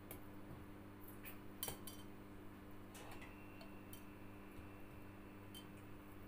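Faint clicks and light taps of potato slices and fingers against a glass baking dish as the slices are laid in, over a steady low hum.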